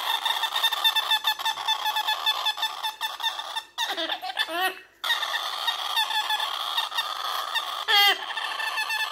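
Baby galah's fast, pulsing food-begging calls while being syringe-fed, breaking off briefly around the middle and coming back, with a louder call near the end.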